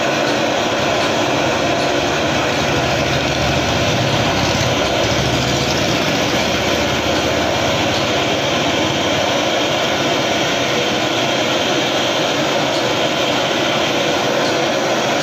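Gas burner flame burning steadily under a submersible pump motor rotor to heat it, a loud, even rushing hiss that does not change.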